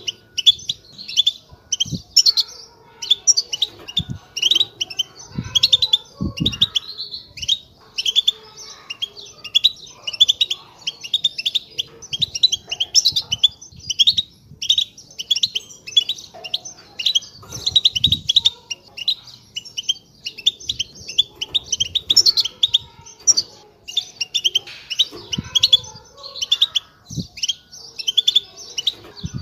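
European goldfinches twittering: a continuous, rapid run of tinkling chirps and trills with calls overlapping. A few low thuds come and go underneath.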